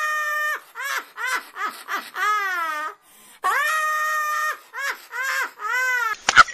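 A high-pitched voice wailing. It holds one long note, then breaks into a run of short wavering cries, and the same phrase comes twice.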